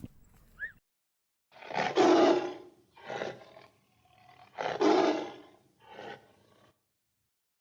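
Large animal roaring: two long, loud roars, each followed by a shorter, quieter one.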